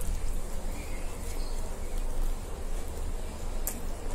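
Two people biting and chewing pizza: soft mouth and chewing sounds with a few short sharp smacks, over a steady low rumble.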